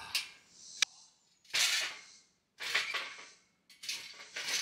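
Metal grill frame being set onto a brick-capped masonry base: a sharp metal clank just under a second in, then three rough knocking and scraping clatters as it is shifted into place.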